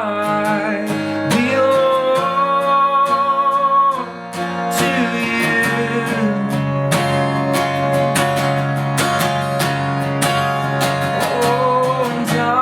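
Acoustic guitar being strummed in a steady rhythm, with a voice singing long held notes over it.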